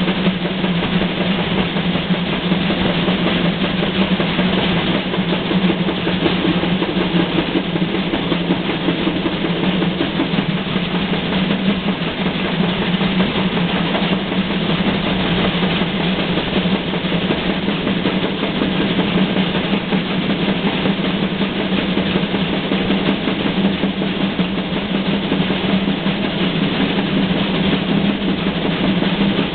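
Steady, unbroken running noise of a moving train, a dense rumble and rattle with no pauses.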